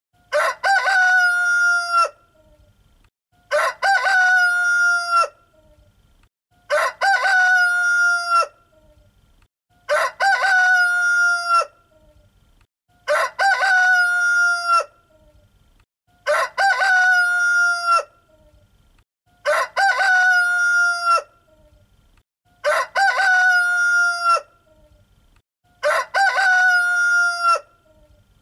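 Rooster crowing cock-a-doodle-doo nine times, one crow about every three seconds. Each crow is the same, as if a single recorded crow were repeated.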